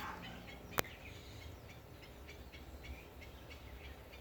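A single sharp click just under a second in, then faint, quick chirps repeating about three times a second from an animal in the background, over a low hum.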